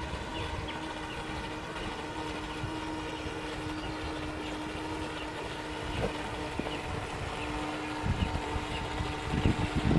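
Brushless electric motor of a Feilun FT011 RC speedboat running at steady throttle across open water, a constant whine over a hiss. Irregular low rumbles come in from about eight seconds in and are the loudest part.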